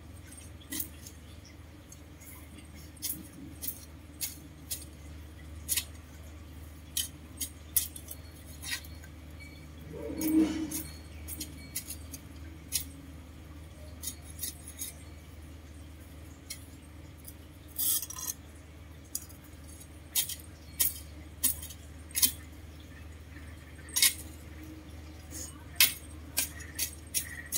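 A long digging tool jabbed repeatedly into garden soil, giving irregular sharp clinks and knocks about one every second or two, over a steady low hum. A brief, louder low sound comes about ten seconds in.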